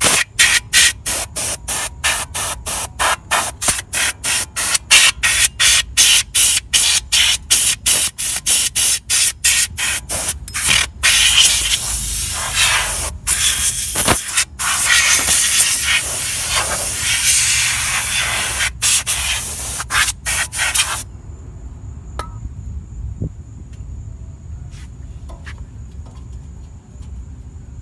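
Aerosol spray can hissing onto a rusty rear wheel hub and brake assembly to clean it: many short rapid bursts, about three or four a second, for the first eleven seconds, then one continuous spray for about ten seconds that cuts off suddenly.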